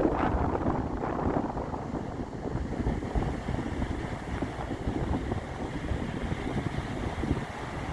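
Waves breaking on a beach under a steady rumble of wind, with wind buffeting the microphone. It is a little louder in the first second or so.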